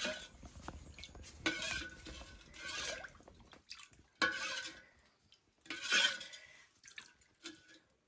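Steel ladle stirring thin yogurt kadhi in a steel pot, scooping it up and pouring it back, with wet splashes and light scrapes of the ladle on the pot about five times.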